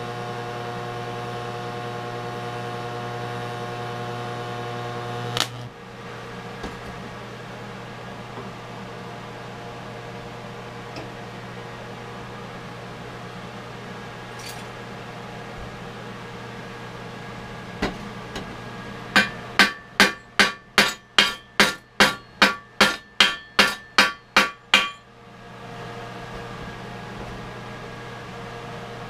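Hobart TIG welder running with a steady hum for about five seconds, then cutting off with a click. Later comes a quick run of about fifteen sharp, ringing hammer strikes on steel, about two and a half a second.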